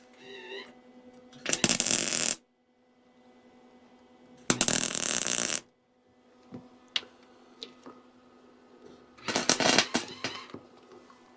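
MIG welder arc crackling in three short bursts of about a second each, with pauses between: short runs of weld filling holes and cracks in a broken steel mini bike frame.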